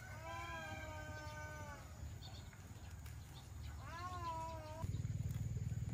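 A cat meowing: one long drawn-out meow, then a shorter meow that rises and falls about four seconds in. Near the end a louder low, steady hum sets in.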